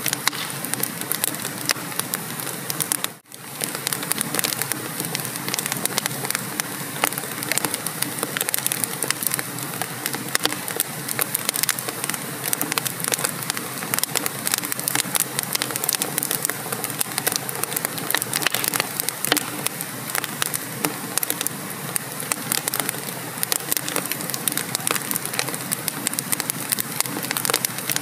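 Wood fire in a fireplace crackling and popping steadily, with dense irregular snaps over a constant hiss. The sound briefly cuts out about three seconds in.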